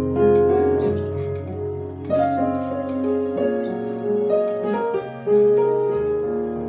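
Keyboard playing slow, soft sustained chords in a piano tone, a new chord struck roughly every second or so: a gentle, restful worship pad.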